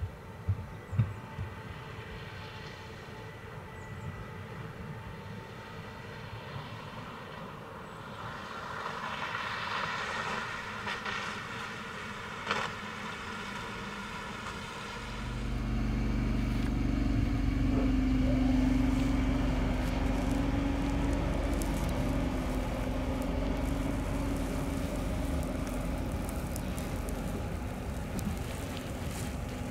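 Rhaetian Railway electric trains: a red passenger train rolls out of the station with soft wheel-on-rail noise, a few knocks at the start and a sharp click about twelve seconds in. From about halfway a louder, steady low drone with a held hum takes over as another red electric train approaches along the platform.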